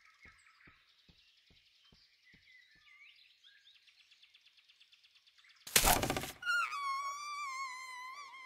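Cartoon forest sound effects: faint bird chirps and soft clicks, about three a second, fading out after a couple of seconds. About six seconds in comes a loud, sudden burst of noise lasting under a second, then a long wavering, whistle-like tone.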